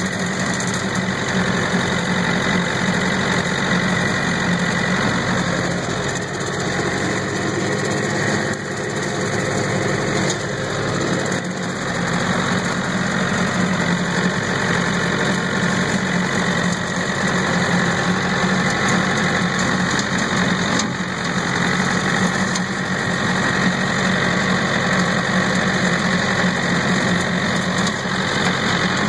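Farm tractor engine and its bush hog (rotary cutter) running steadily while mowing tall dry grass, heard from the tractor seat close to the exhaust stack.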